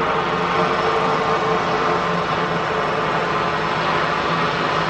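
Pilatus PC-6 B2-H4 Turbo Porter's PT6A turboprop engine and propeller running at low power as the plane rolls out after landing: a steady drone with a stack of held tones.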